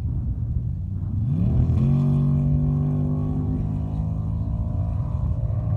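Lifted pickup truck's engine launching off the line in a mud drag race. It revs up sharply about a second in, then holds high revs as the truck runs down the dirt track, over a low rumble.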